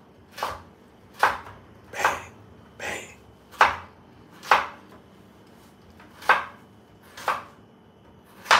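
A kitchen knife chopping vegetables on a cutting board: single sharp knocks at a slow, uneven pace of about one a second, nine in all, with a short pause about halfway through.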